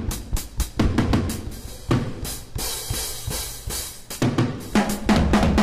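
Sampled 1960s Abbey Road drum kit in Kontakt, played from Maschine pads at fixed full velocity: a run of kick and snare hits, a long cymbal wash about two and a half seconds in, then quick hits again from about four seconds.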